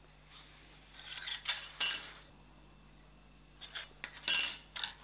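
Thin steel pieces of a freshly TIG-welded lap joint clinking and scraping against a steel workbench as gloved hands pick them up and turn them over. The clinks come in two short clusters, one about two seconds in and one near the end, and the second is the loudest.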